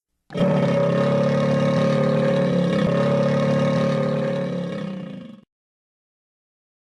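Cartoon monster sound effect meant as the Loch Ness monster: one long, steady low drone with many overtones, starting suddenly, then fading out and stopping about five seconds in.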